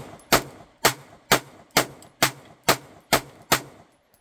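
Semi-automatic pistol fired rapidly: about nine shots roughly half a second apart, each a sharp crack, stopping a little after three and a half seconds in.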